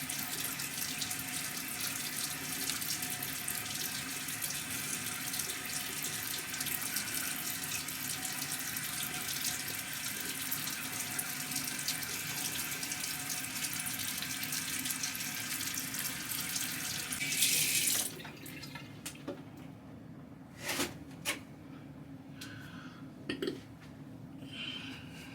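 Tap water running steadily into a sink. It surges briefly and then stops about 18 seconds in, followed by a few light knocks and clicks.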